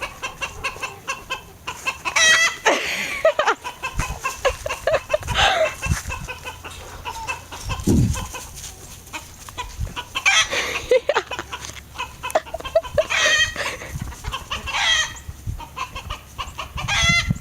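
A flock of chickens clucking, with loud squawks breaking out several times, among scattered clicks and knocks.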